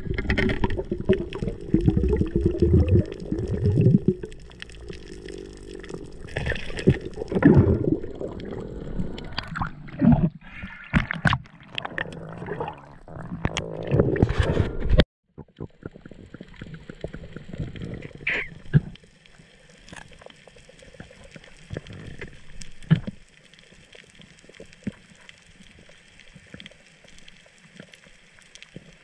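Underwater sound at a camera housing: loud bubbling and rushing water with irregular knocks and clatter, which cuts off suddenly about halfway through. After that comes a quieter, steady underwater hiss with scattered faint clicks.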